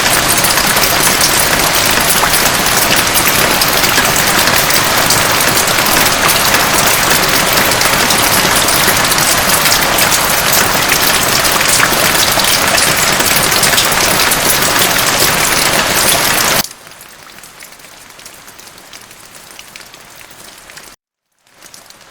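Heavy, steady rain. About three-quarters of the way through it cuts off suddenly to much quieter rain, with a moment of silence just before the end.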